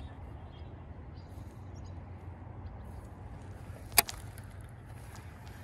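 Steady low wind rumble on the microphone, with one sharp click from the baitcasting reel being handled about four seconds in.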